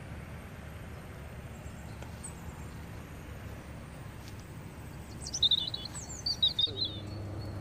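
Steady outdoor background noise with a bird chirping, a quick run of high chirps about five seconds in.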